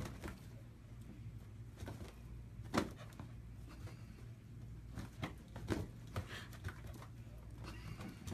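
A dog batting and biting at a latex balloon on a string, making scattered soft thumps and taps as the balloon bumps against its muzzle and paws. The loudest knock comes nearly three seconds in, with a cluster more a couple of seconds later. A steady low hum runs underneath.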